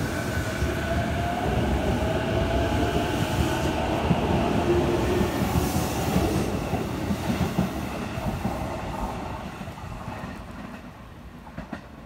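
JR Ome Line E233-series electric commuter train running past, with a steady rumble of wheels on rail and a faint rising whine. The sound fades away over the last few seconds as the train leaves.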